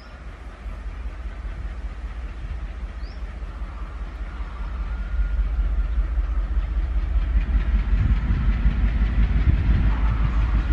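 ALCO WDM3D diesel locomotive's V16 engine chugging under heavy load as it approaches, pouring out black exhaust smoke. Its deep pulsing rumble grows steadily louder, stepping up markedly about halfway through.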